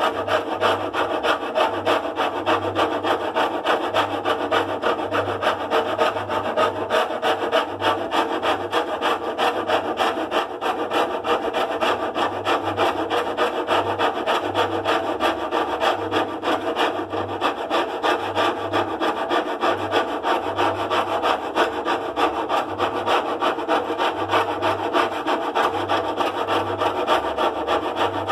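Continuous rhythmic rasping, like rubbing or sawing, several strokes a second and steady throughout, over a pulsing low hum.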